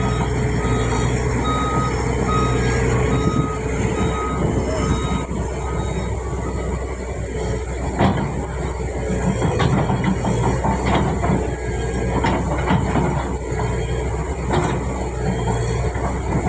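Backhoe loader's diesel engine running steadily while it works, with a reversing beeper sounding about twice a second for the first five seconds. After that come scattered metallic clanks and knocks from the bucket and arm.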